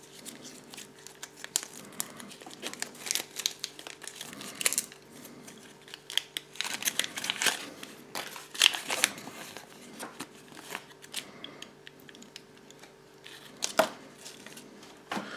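A thin paper leaflet from a Kinder Surprise egg being crumpled, unfolded and smoothed flat by hand: irregular crinkling and crackling, busiest in the middle.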